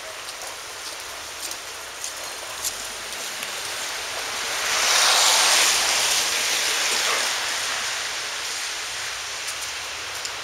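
Steady hiss of wet snow falling, with a few faint clicks. The hiss swells louder for about two seconds near the middle, then eases off.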